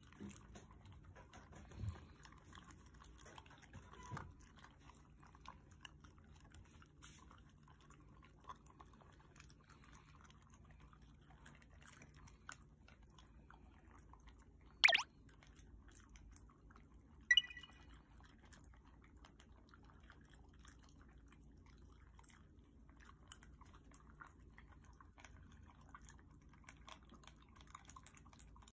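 Shiba Inu dogs eating from their bowls: quiet chewing, lapping and small clicks of food and teeth, with a sharp clink against the stainless steel bowl about halfway through and a shorter ringing clink a couple of seconds later.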